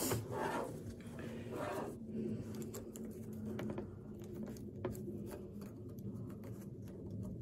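Small scattered metal clicks and taps as the U-bolt, saddle and nuts of a steel wire-rope clamp are handled and started on the threads in gloved fingers, over a faint steady low hum.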